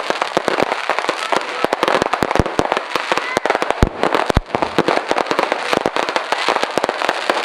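New Year's fireworks display: a dense, continuous run of many sharp cracks and bangs, with two heavier booms about four seconds in.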